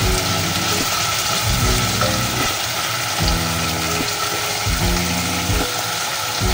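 Onions and tomatoes frying in oil in a glass pot, a steady sizzle, while a metal spoon stirs them. Background music with repeating low notes plays underneath.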